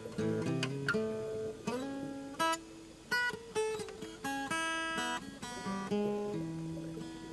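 Background music played on acoustic guitar: a run of single plucked notes, each ringing out and fading before the next.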